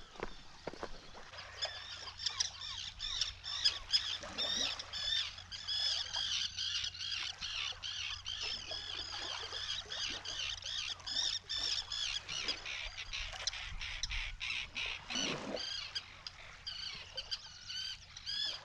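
Many birds calling over one another in a continuous chorus of short, repeated calls, typical of a nesting seabird colony on the islands.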